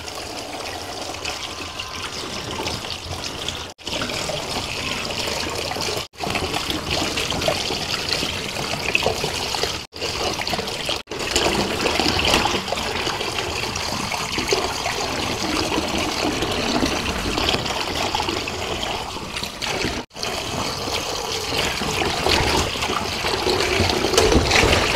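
Kitchen tap running into a steel bowl in a stainless steel sink as spring onions and celery are rinsed by hand under the stream. The water sound is steady, cutting out for an instant about five times.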